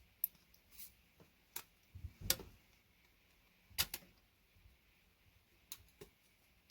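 Side cutters prying and snipping the thin steel shields off RJ45 ethernet connectors: scattered sharp metal clicks and snaps, with a low knock a little over two seconds in.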